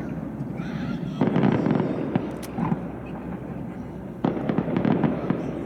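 Aerial fireworks shells bursting: two loud bangs about three seconds apart, each dying away over about a second, with smaller pops between.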